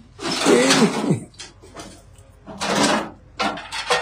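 A short voice exclamation, then bursts of rustling and scuffing as people move about.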